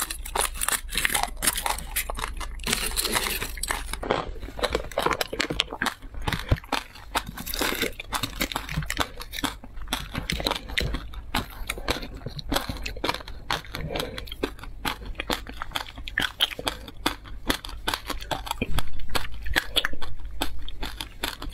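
Foil candy wrapper crinkling and tearing as it is peeled off, then crunchy biting and chewing of a lollipop candy coated in sprinkles and seeds, close to the microphone, with the loudest crunches near the end.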